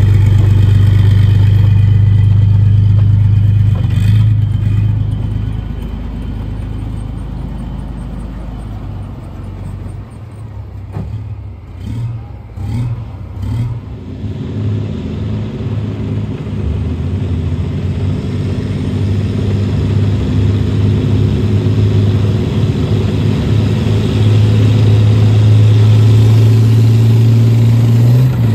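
The V12 diesel engine of a Challenger 2-based Trojan armoured engineer vehicle running with a steady low hum as the vehicle drives past close by. The hum fades over the first several seconds and turns unsteady in the middle. It then builds again as the vehicle approaches and is loudest near the end.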